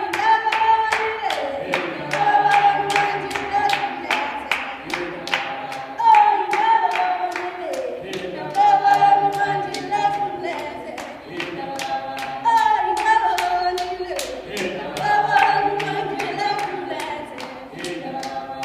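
A small group singing unaccompanied in several voices, with steady hand clapping on the beat at about three claps a second. The same sung phrase comes round roughly every six seconds.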